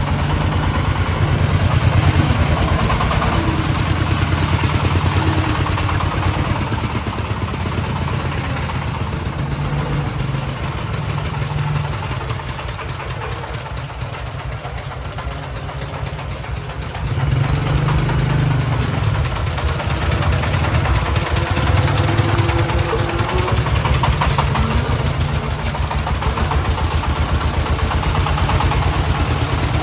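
A công nông's single-cylinder diesel engine running with a fast, steady chug while the tractor-truck is driven slowly. It drops quieter for a few seconds around the middle, then comes back louder suddenly a little after halfway.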